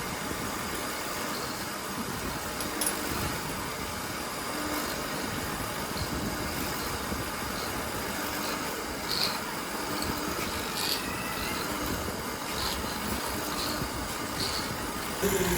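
A machine running steadily, with a few faint light clicks.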